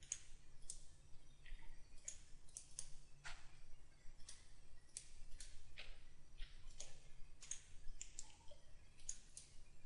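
Computer mouse buttons clicking, about twenty irregular, faint clicks over a steady low hum.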